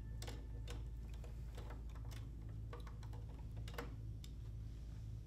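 Small, uneven metal clicks and taps of screws and a flathead screwdriver being worked at a sewing machine's needle plate, as the sensor plate is fastened down, over a steady low hum.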